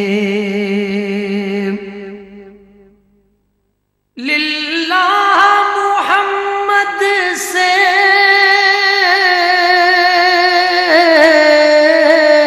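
A single voice singing an Urdu naat (Islamic devotional song) without accompaniment. A long, wavering held note fades out about two seconds in, then after a second's silence a new long, ornamented line begins about four seconds in.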